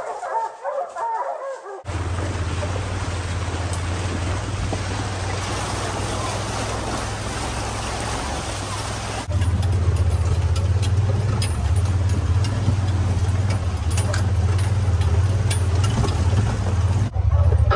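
Side-by-side UTV engine running steadily as it drives up a shallow creek, with water splashing around the tyres. It gets louder about nine seconds in.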